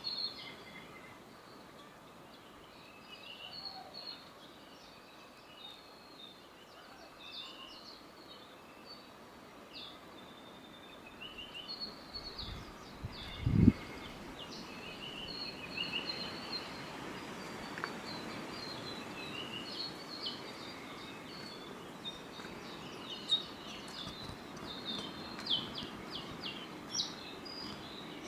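Many forest birds calling and singing together, short chirps and trills overlapping one another, over a soft background hiss. A single low thump about halfway through.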